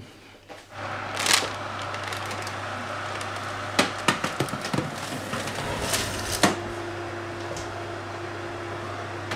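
Oven running with a steady hum and an even hiss, with a few sharp clicks and knocks; a second, higher steady hum joins about two-thirds of the way through.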